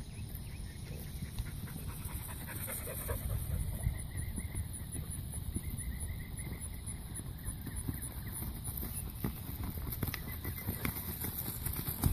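A dog panting in the heat, over a low rumble of wind on the microphone and a high, evenly pulsing buzz.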